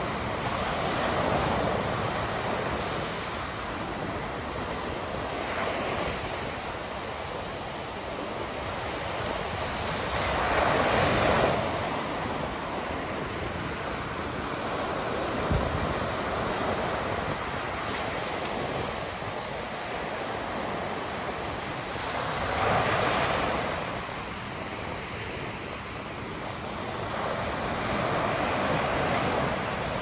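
Ocean surf breaking on a sandy beach: a continuous wash of noise that swells as each wave crashes and runs up the sand, then eases. The loudest surges come about eleven seconds in and again a little after twenty-two seconds.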